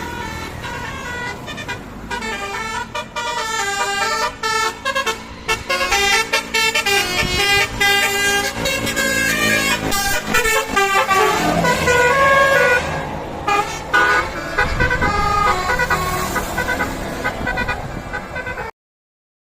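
Indonesian 'telolet' multi-tone musical bus horn playing a long, rapid run of short toots at changing pitches, like a tune. It grows louder after the first few seconds and cuts off suddenly near the end.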